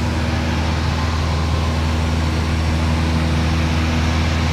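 Cessna 172 Skyhawk's piston engine and propeller droning steadily in flight, heard from inside the cabin: a steady low drone with a hiss over it.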